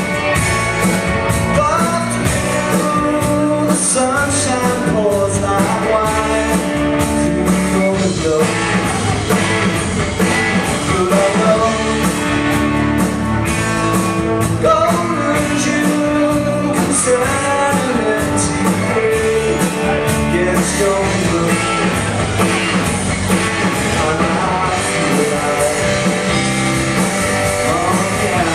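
Live rock band playing a song, with a lead singer over guitars and a steady drum beat.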